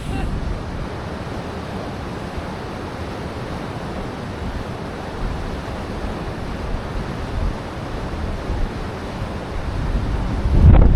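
Strong wind rushing and buffeting the microphone, a steady roar that swells into a louder gust near the end.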